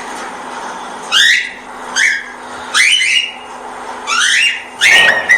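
Cockatiel giving four loud, harsh, rising contact calls, spaced about a second apart, the last one longer, over a faint steady hum.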